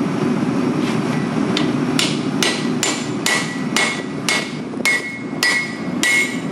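Hand hammer striking a white-hot, fluxed billet of folded shear steel on an anvil, about two blows a second, each with a short metallic ring: the first forge-welding blows that join the folded steel into double shear steel. The blows start faint about a second in and grow louder from about two seconds in, over a steady low rumble.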